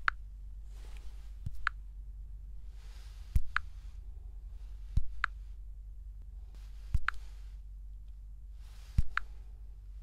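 Smartphone dialer keypad being tapped one digit at a time, about every two seconds: each press gives a soft thump of the fingertip on the touchscreen followed by the phone's short keypad click. A low steady hum lies underneath.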